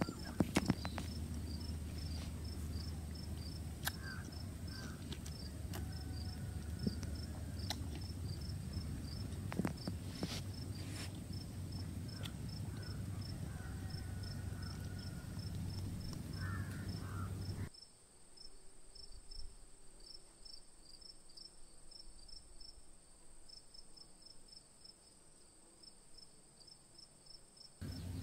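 Insects chirping in a steady, high, rapid rhythm, with a few short bird whistles and some sharp clicks in the first half; the low background rumble drops away about two-thirds of the way in.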